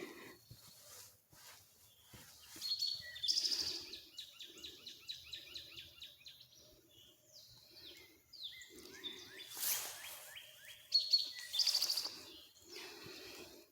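Wild songbirds singing in woodland, with quick runs of short falling chirps that come twice, a few seconds in and again near the end. Under them, faint low repeated calls from distant barking dogs.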